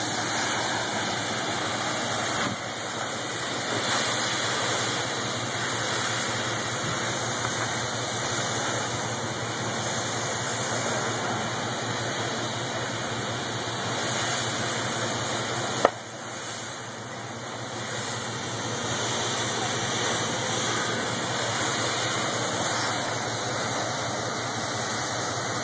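A vehicle engine idling under a steady hiss, with one sharp click about sixteen seconds in.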